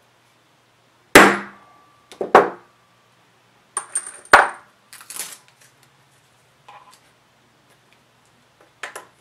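Hammer striking a steel letter stamp held on an aluminium blank over a steel bench block: three sharp metal-on-metal blows in the first half, the last the loudest, with a short metallic ring after them. Lighter clicks and clinks follow as the stamps are handled.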